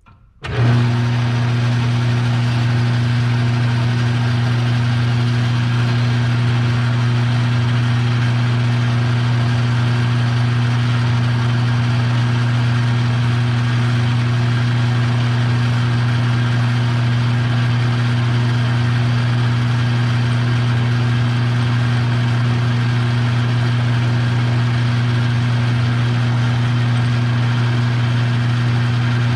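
An electric machine-tool motor switching on about half a second in, then running steadily with a strong low hum.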